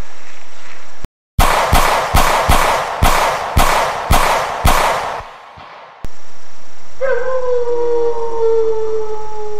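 A volley of about eight gunshots, a little under half a second apart, fading out. Then, about seven seconds in, a long wolf-like howl that slides slowly down in pitch.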